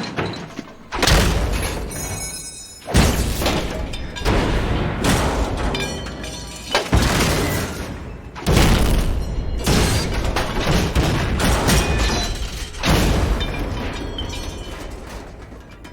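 Heavy metal-on-metal crashes and bangs, about eight big hits in a row, each followed by ringing, clattering metal that dies away slowly. The last crash, a few seconds before the end, fades out gradually.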